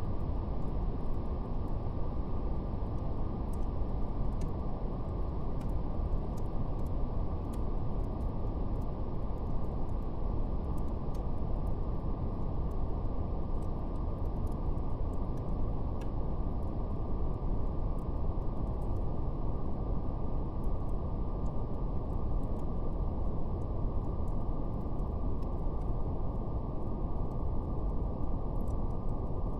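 Steady brown noise, a deep, even rumbling hiss with nothing above about 1 kHz, with faint, scattered crackles of a wood fire.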